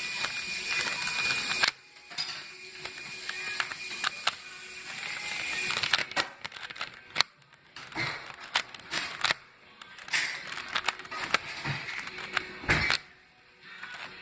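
Rubik's cube layers being twisted by hand in a run of quick turns, with irregular plastic clicks and rattles as the final sequence is carried out.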